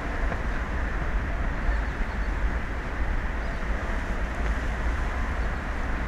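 Wind buffeting the microphone with a heavy, uneven low rumble, over a steady hiss of wind and open sea.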